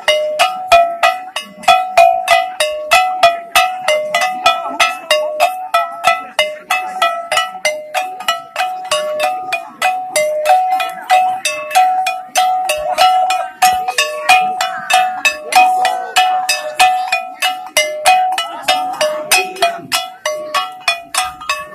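Small hand-held gongs and bamboo sticks struck in a steady dance rhythm, about three to four strokes a second, each stroke ringing with alternating higher and lower pitches.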